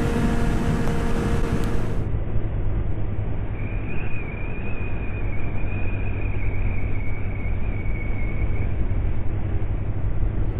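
Motorcycle engine running at a steady speed under wind noise, with a steady low hum. About two seconds in the sound turns duller, and a thin wavering whine sits over it for about five seconds in the middle.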